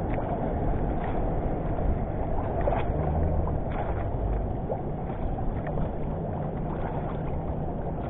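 Water lapping and sloshing around a small outrigger fishing boat, a steady wash of noise with a faint low hum and a few light knocks.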